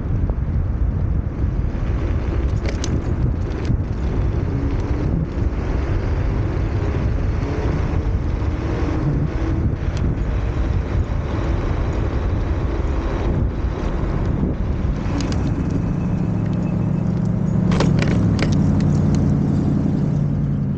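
Varla Eagle One off-road electric scooter riding on pavement: steady tyre and wind rush with scattered clicks and rattles, and a steadier low hum near the end.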